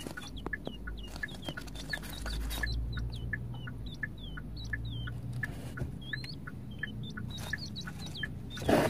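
Newly hatched button quail chicks peeping: a steady run of short, high peeps, about two or three a second, some with a quick upward twist. A low rumble of the car cabin runs underneath.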